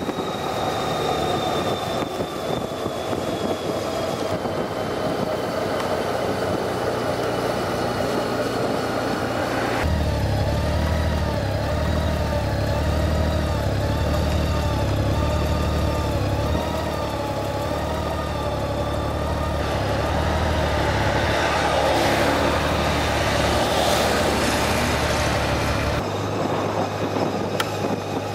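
Honda Gold Wing GL1800 under way, its flat-six engine running steadily along with road and wind noise. The low engine note gets fuller about a third of the way in and eases back near the end.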